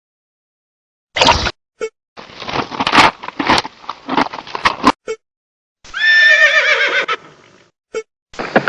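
A horse whinnying: one trembling call of about a second, falling slightly at the end, comes about six seconds in. It is preceded by a run of rapid knocks and followed by more near the end.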